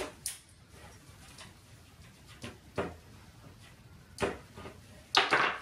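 Strap clamp with a ratchet buckle being fitted around a wooden tray frame: a few scattered light clicks and knocks, then a louder, longer clatter near the end.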